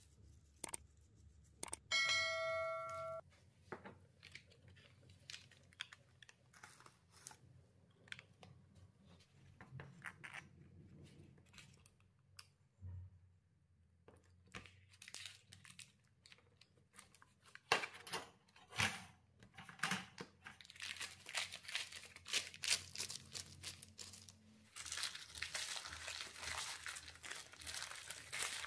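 Kitchen handling sounds: a short ringing ding about two seconds in, scattered taps and clicks, then a stretch of crinkling and rustling that grows denser near the end.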